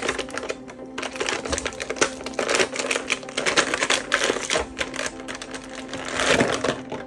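Dense run of quick plastic clicks and rattles from toy parts and packaging being handled, loudest in the middle and again near the end.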